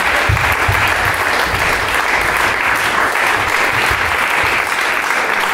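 Audience applauding steadily, dense continuous clapping, with a few low thuds underneath in the first couple of seconds.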